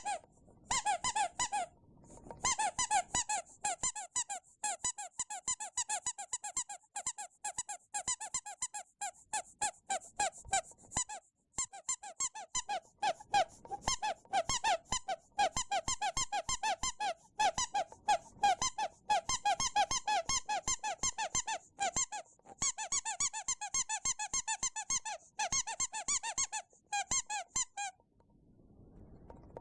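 Rubber bath duck squeaking over and over in rapid runs of high, pitched squeaks, with a few brief pauses between runs.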